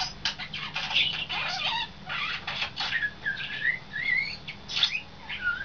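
Pet European starling vocalizing: a fast run of clicks and rattling notes, then, from about three seconds in, wavy whistled notes sliding up and down.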